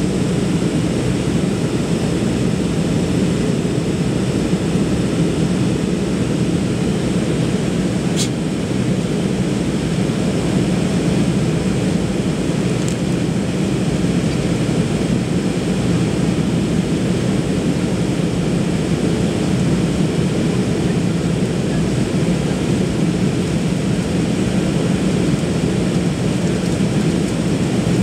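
Steady jet engine and airflow noise heard inside an airliner's cabin as it climbs after take-off, an even low rumble with one faint click about eight seconds in.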